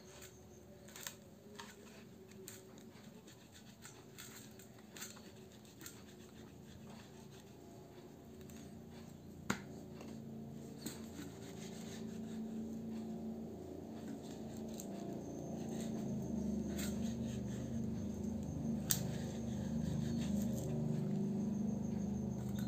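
A kitchen knife cutting through dried salted fish on a wooden cutting board: scattered crisp scrapes and knocks of the blade on the board, one sharp knock about halfway through. A low steady hum grows louder underneath over the second half.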